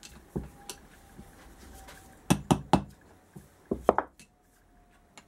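Metal-on-metal tapping on a seized motorcycle brake caliper as its bolt is driven out: a couple of light taps, then three sharp strikes in quick succession a little over two seconds in and two more about a second later.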